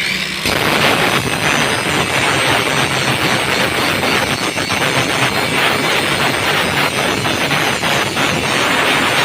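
Metalworking on a steel window frame: a loud, steady, harsh crackling rasp that runs without a break.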